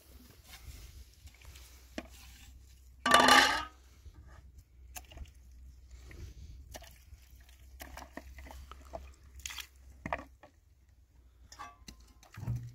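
Scattered light knocks and clinks of things being handled, with one loud, short cry about three seconds in.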